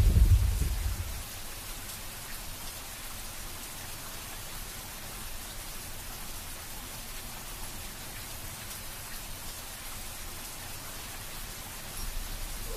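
Steady rain hiss, with the tail of a thunder rumble dying away in the first second and a low rumble rising again near the end.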